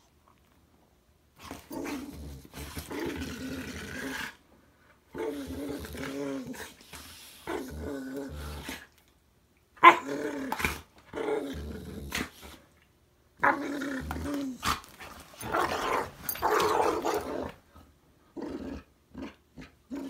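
Two pit bulls play-fighting, growling in repeated bouts of a second or two with short breaks between, starting about a second and a half in. One sharp click near the middle is the loudest moment.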